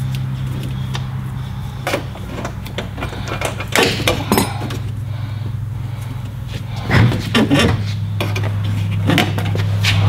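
Scattered metallic clinks and knocks from hand work on a truck's luggage-door latch cable and hinge, a few at a time, over a steady low drone that drops slightly in pitch about seven seconds in.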